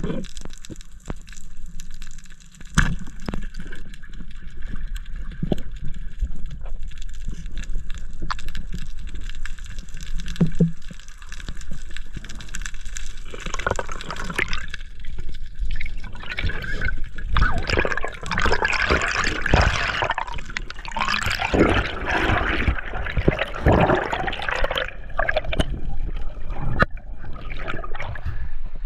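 Underwater camera audio: a muffled low rumble of water with scattered clicks and knocks. About halfway through it gives way to a long stretch of gurgling and bubbling water, which fades near the end as the camera breaks the surface.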